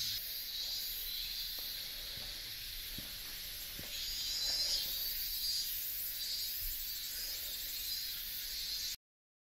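A steady, high-pitched chorus of insects that swells and eases a little, with a few faint taps. It cuts off suddenly near the end.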